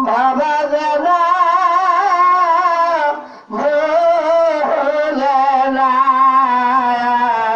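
A man singing a Bengali devotional ghazal, holding long, wavering notes in two phrases with a short breath between them about three seconds in.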